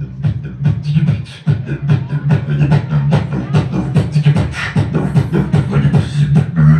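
A man beatboxing an electro house beat through loudspeakers: a steady low bass line under rapid mouth-made kick, snare and hi-hat hits, with a short dip about a second and a half in.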